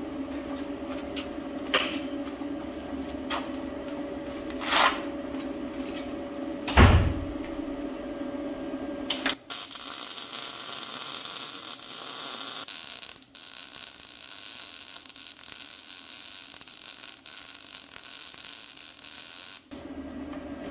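Electric arc welding on a steel caster bracket: a steady crackling hiss that starts about nine seconds in, runs about ten seconds, and stops. Before it there is a steady hum with a few short sharp cracks and one heavy knock about seven seconds in.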